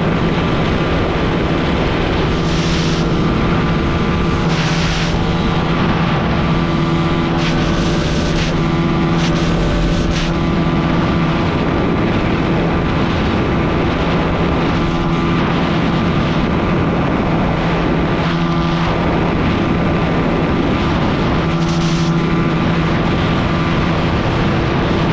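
Honda CG125 single-cylinder four-stroke motorcycle engine running hard at a steady high pitch during a drag run, with wind gusting on the microphone now and then.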